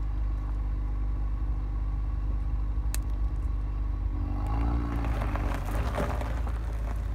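Ford Focus RS Mk3's 2.3-litre turbocharged four-cylinder idling steadily at the exhaust. About four and a half seconds in the revs briefly rise and fall, followed by about a second of crackling.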